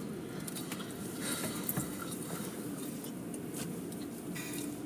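Automatic car wash machinery running, heard from inside the car: a steady low drone, with short hissing bursts of water spray about a second in and near the end.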